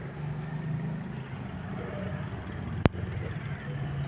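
Steady low mechanical hum, like a running motor, with one sharp click about three seconds in.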